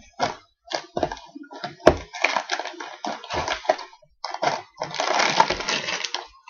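Small Lego set's packaging being handled and opened: irregular crackling and rustling, with a longer continuous rustle about four and a half seconds in.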